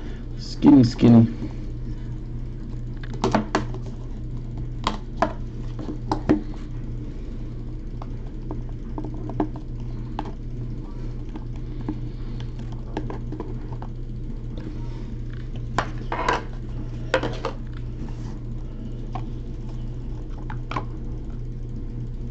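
Cardboard trading-card box being handled and opened: scattered clicks, taps and scrapes as the lid comes off and the stack of cards is slid out, over a steady low hum.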